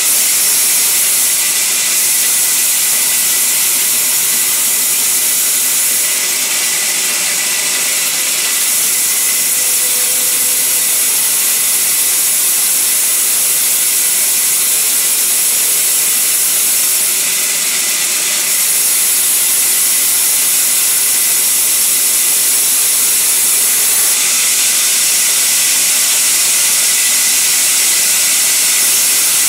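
Band saw mill's blade cutting through sal wood timber: a steady, loud, high-pitched hiss that swells slightly a few times.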